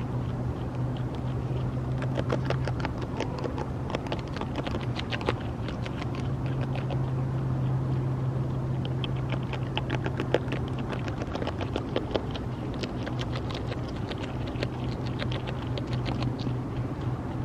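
North American beaver chewing leaves, runs of quick, irregular crunching clicks from its teeth, over a steady low hum in the background.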